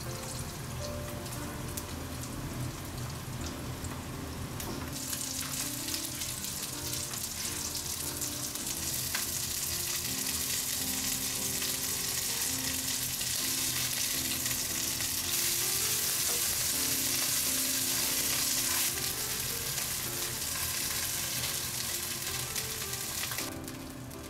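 Starch-dusted cod pieces sizzling in hot olive oil in a frying pan, the sizzle growing louder after about five seconds and dropping away sharply near the end.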